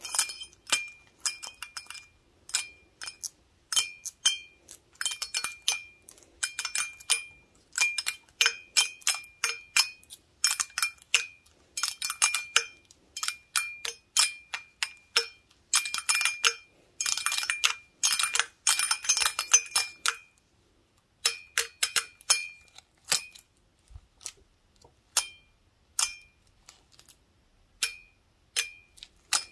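Wooden toothpicks held in gloved fingers tapping a large glass beer stein in quick, irregular flurries. Each tap leaves a short, high glassy ring. The tapping stops briefly about two-thirds through, then resumes more sparsely.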